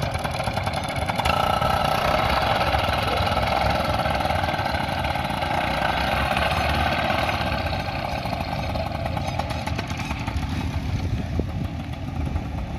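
Paramotor engine running steadily, swelling a little from about a second in and easing back after about seven seconds.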